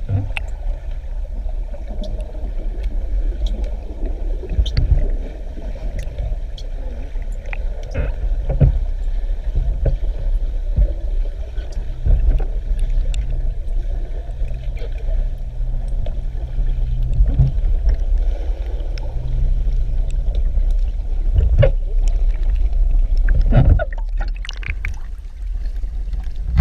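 Low, muffled rumble of moving water as picked up by a camera underwater, with scattered clicks and knocks and a faint hum in the middle.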